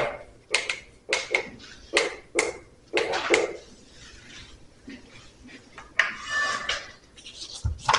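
Chalk knocking and clacking against a blackboard as a number is written, about eight sharp taps in the first three and a half seconds. These are followed by fainter shuffling and one low thump near the end.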